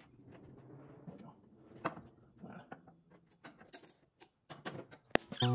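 Faint, scattered clicks and light metal taps of hand work on a car's fuel pickup fittings from underneath. Loud music with a beat comes in near the end.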